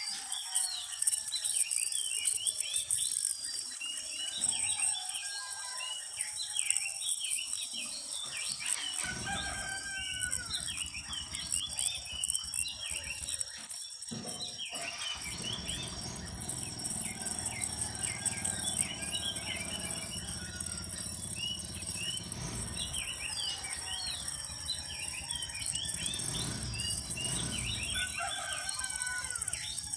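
Many birds chirping in quick, overlapping calls over a steady high insect drone. From about nine seconds in, a low rumble joins underneath.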